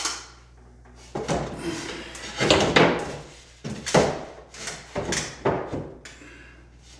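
Irregular knocks and scrapes from drywall work: handling drywall board and tools, about five sharp strokes with quieter gaps between.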